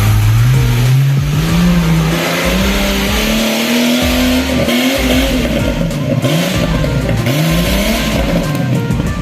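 Off-road vehicle engine revving hard under load, its pitch climbing steadily for about four seconds and then rising and falling in several surges, with background music under it.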